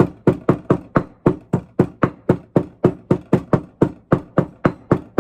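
Cardamom being pounded to crush it, a steady run of sharp knocks about four a second that stops just after the end.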